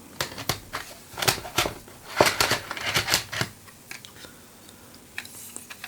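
Small plastic items clicking and rattling as they are handled, the sound of MiniDisc cartridges being picked through, busiest in the first three seconds and then only a few light clicks.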